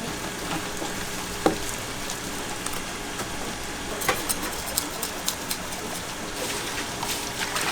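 Knife knocking and tapping on a cutting board while fish are filleted for sashimi: one sharp knock about a second and a half in, then a quick run of taps about four seconds in, over a steady background noise.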